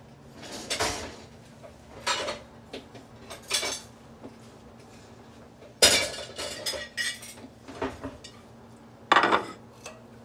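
Kitchenware being handled on a counter: a series of separate clinks and knocks, the sharpest about six seconds in.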